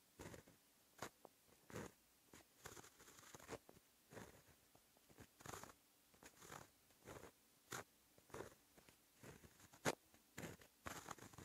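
Pen nib scratching over paper in short separate strokes as Japanese characters are handwritten, quiet, with a sharper click-like stroke near the end.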